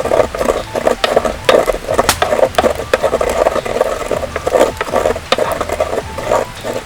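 Rock salt and peppercorns being crushed: a dense run of sharp cracks and crunches coming in repeated bursts.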